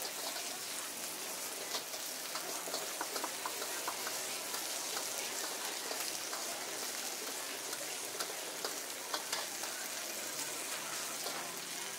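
Noodles, beef and fried egg sizzling on a hot iron plate while being tossed with metal tongs: a steady sizzle with scattered small clicks and pops.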